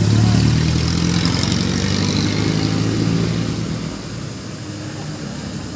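Small motorcycle engine running as it passes close by, loudest at the start and fading away after about four seconds.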